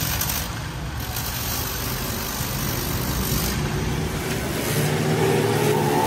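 Hand-held grinder running with a steady hiss and hum as it buffs the damaged rubber of a tractor tyre's wall. A whine comes in and rises near the end.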